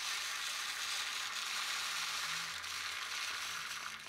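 Activated charcoal granules pouring from a packet through a silicone funnel into an air-filter tube, a steady hissing trickle that tapers off near the end.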